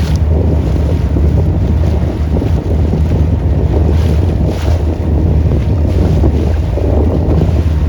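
Motorboat under way: a steady engine and water rush, with wind buffeting the microphone.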